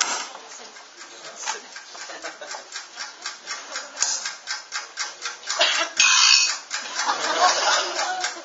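Light, rapid, even ticking on stage, about five ticks a second, with two louder hissing stretches about five and a half seconds in and again about seven seconds in.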